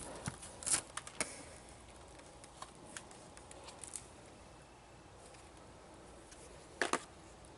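Light clicks and knocks of hand work on plumbing parts: several in the first second or so, a few faint ticks later, and a short sharp double knock about seven seconds in, over faint room tone.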